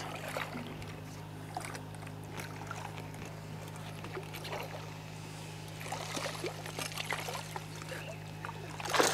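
Steady low motor hum on a fishing boat, with scattered light knocks and water noise as a hooked fish is brought to the boat. A louder, noisy splash-like burst comes at the very end.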